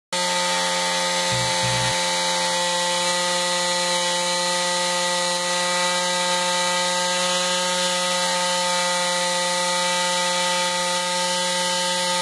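Corded electric jigsaw running steadily at full speed, pressed against a plastic tub of wet plaster-and-sand mix so its vibration shakes air pockets out of the mould. It makes a loud, even motor whine that switches on abruptly at the start.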